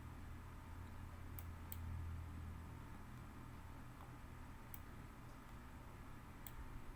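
Four faint, sharp computer mouse clicks, spread unevenly, over a low steady hum.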